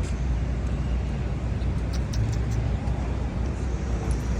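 Steady rumble of city street traffic, with a few short clicks about two seconds in.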